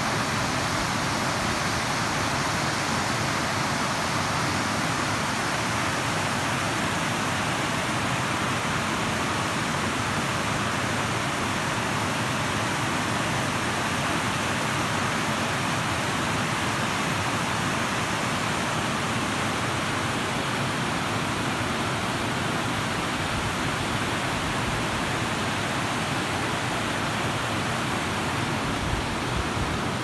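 Water of the Barwon River pouring over Buckley Falls, a rock cascade and weir: a steady, even rush of falling water.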